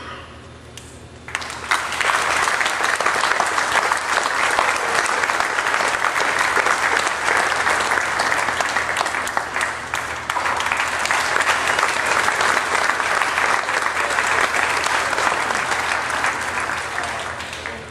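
A crowd clapping, starting about a second in and dying down near the end.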